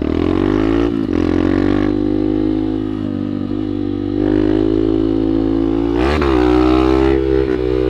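Honda Bros 150's single-cylinder engine running under way. Its pitch climbs, then drops about a second in, holds fairly steady, and dips and climbs sharply again about six seconds in.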